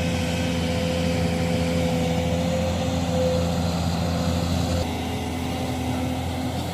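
Excavator diesel engine running at a steady speed; its tone changes slightly a little after halfway.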